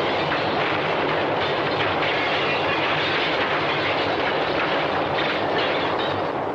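Earthquake sound effect on a film soundtrack: a dense, steady rumbling and crashing of collapsing debris, fading near the end.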